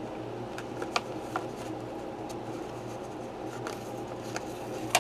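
Paper sticker sheets and planner pages being handled: a few scattered light ticks and taps, the sharpest near the end, over a steady low background hum.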